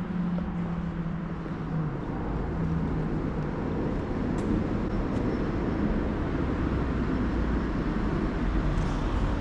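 Yamaha MT125's single-cylinder 125cc engine running through a full Akrapovic exhaust, a deep rumble that grows stronger about two seconds in.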